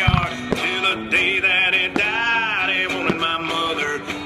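Country song with a male singer and guitar playing along with the show, with sharp bangs of fireworks shells bursting over it, the deepest one right at the start and others about half a second, two seconds and three seconds in.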